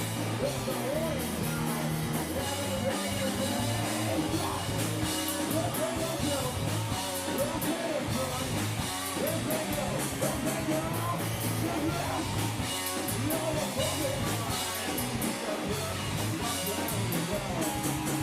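Live rock band playing: electric guitar and bass over a drum kit with crashing cymbals, with vocals sung over it at a steady, full level.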